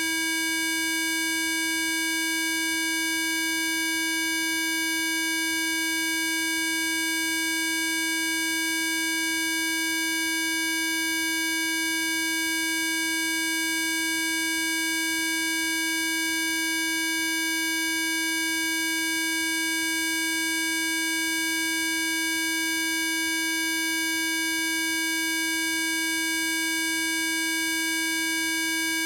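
Synthesized frequency tone of the kind listed in the PC Zapper database: one steady electronic pitch with a row of fainter overtones above it, held without any change.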